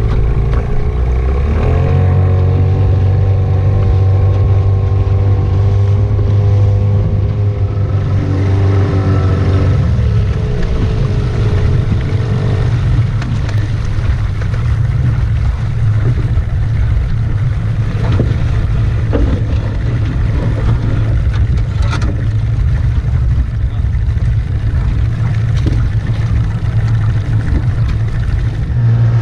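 Motorboat engine running steadily under way, a constant low rumble with some wind noise.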